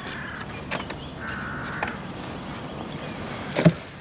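Two drawn-out, wavering animal calls, each about half a second long, over outdoor background noise, then a single sharp knock about three and a half seconds in, the loudest sound.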